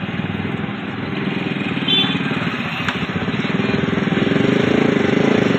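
A small engine running steadily, growing louder a little past halfway through.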